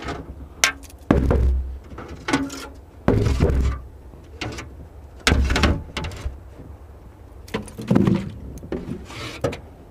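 Irregular dull knocks and thumps from things being handled in a car's carpeted trunk, with heavier deep thuds about a second, three seconds and five seconds in.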